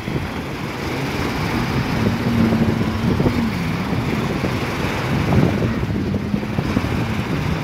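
Jet ski engine running close by, its pitch rising and falling as the rider throttles and turns, over wind and surf noise.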